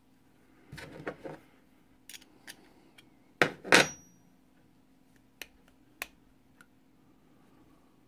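Small metal clicks and clinks from a Dillon XL650 powder bar and its adjustment bolt being handled and turned in the fingers: a cluster of light clicks about a second in, scattered single ticks, and two louder knocks about halfway with a brief metallic ring.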